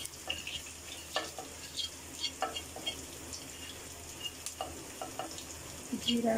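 Ground spices frying in hot oil in a wok, a steady soft sizzle, with a plastic spoon scraping and tapping against a plate several times as the powder is pushed into the pan.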